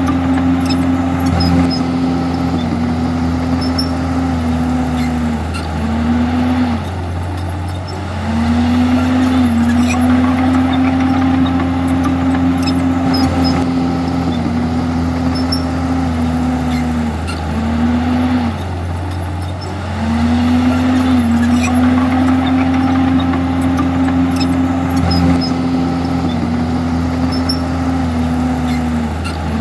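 Komatsu D51EX bulldozer's diesel engine running steadily under work, its note dipping briefly in pitch and level about every twelve seconds, three times.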